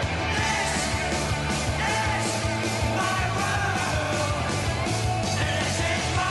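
Punk rock song playing: distorted electric guitars, bass and fast, steady drums, with yelled vocals.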